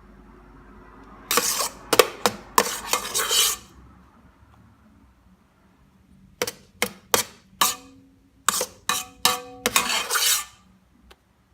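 A utensil clinking and scraping against a mixing bowl as beaten egg white goes into pancake batter. There are two bursts of clinks and scrapes, the second a run of about a dozen sharp taps, some ringing briefly.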